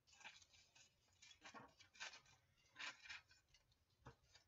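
Faint rustling of paper pages being handled and turned in a handmade junk journal, in several short scattered rustles, with a small sharp click near the end.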